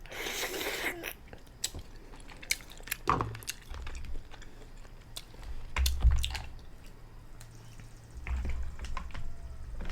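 Close-miked chewing and mouth smacking of black lip mussels, with a brief hissing rush in the first second and scattered sharp clicks.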